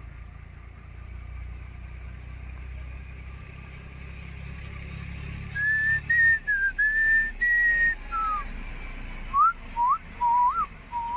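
Whistling over a low rumble: the rumble fades about halfway, when a few held whistled notes start, followed near the end by quick rising and falling whistled notes.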